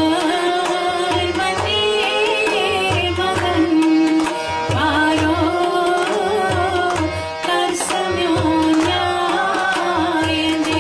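Kashmiri song with tabla accompaniment: a held drone note runs underneath while a wavering melodic line moves above it and the tabla keeps a steady rhythm of low strokes.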